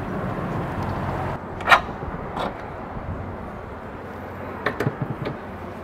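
A Sprinter van door worked by its handle, with a sharp latch clunk early on, followed a few seconds later by a cluster of light clicks as a storage cabinet door is opened.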